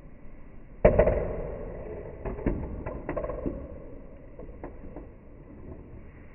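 A sharp knock about a second in that rings briefly and fades, followed by several lighter clicks and taps, over a faint steady hiss.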